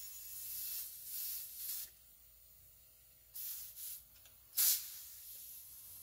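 Compressed air hissing at a small tire's valve through a dial-gauge inflator chuck, in uneven bursts as the chuck is worked, with a louder, sharp burst about four and a half seconds in.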